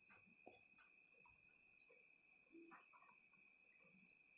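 Faint insect chirping: a fast, even pulsing high tone, about ten pulses a second, over a steady high whine.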